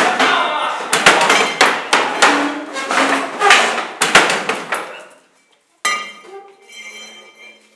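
Loud sharp bangs and clanks, roughly two a second, with a ringing clatter, dying away about five seconds in; then a faint steady hum.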